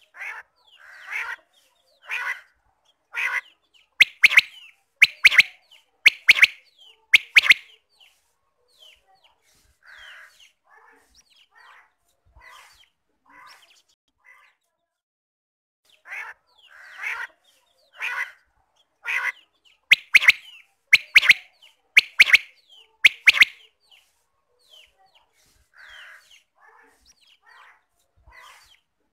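Quail calling: loud, sharp calls repeated about once a second in two bouts, each growing louder toward its middle, with fainter calls in between.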